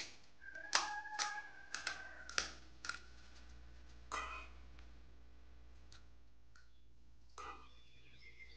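Crisp fried puri (golgappa) shells being poked open with a thumb: a quick series of sharp cracks and crunches in the first three seconds, then a few scattered ones later.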